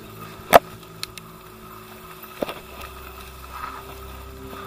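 Mountain bike rolling down a rough dirt trail, with a steady hum from the moving bike underneath. A single loud knock about half a second in and a few lighter clicks and rattles follow as the bike goes over the bumpy ground.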